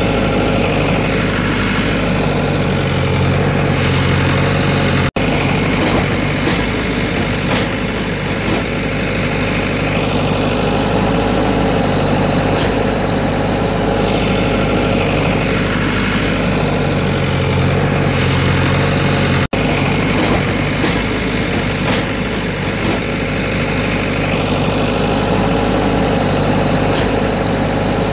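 Engine idling steadily, like heavy machinery, laid over the pictures as a looped sound effect. It cuts out for an instant twice where the loop restarts.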